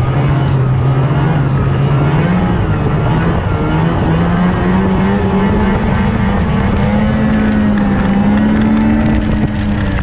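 Snowmobile's two-stroke engine running under way. Its pitch climbs steadily about two to five seconds in as the sled speeds up, then holds high.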